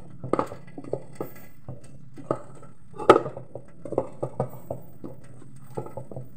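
A hand mixing a sticky dimsum filling of minced meat and flour in a metal pot: irregular squelches and knocks against the pot, with one sharp knock about three seconds in. A steady low hum runs underneath.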